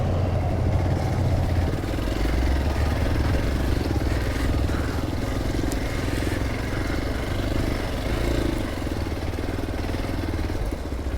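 Hero Xpulse 200 4V's single-cylinder engine pulling under load as the motorcycle climbs a steep dirt track, its note holding fairly steady.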